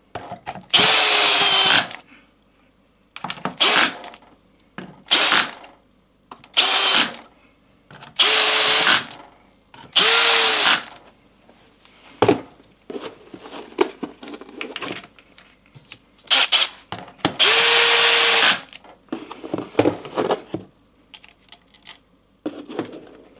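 Cordless drill-driver running in the bolts of a lawn tractor's transaxle casing, in about seven short runs of half a second to a second and a half. The motor's pitch drops at the end of each run, with small clicks of handling in between.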